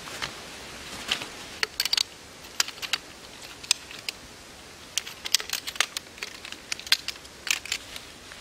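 Collapsible camp chair being taken down: irregular sharp clicks and clacks as the jointed poles of its frame are pulled apart and folded.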